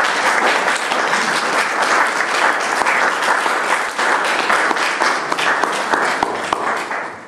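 Audience applauding, many hands clapping together, tailing off near the end.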